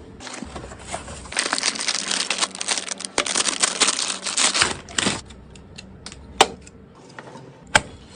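Hand-handling noise of PC parts: a dense run of small plastic clicks and crinkling for a few seconds, then two single sharp clicks near the end.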